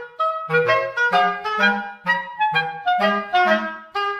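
Background music: a bouncy melody of short notes that fade quickly, about two or three a second, over a changing chord.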